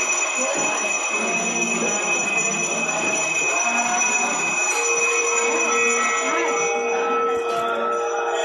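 Temple bell ringing continuously during a Shiva abhishekam, over a murmur of devotees' voices. A steady lower tone joins about five seconds in.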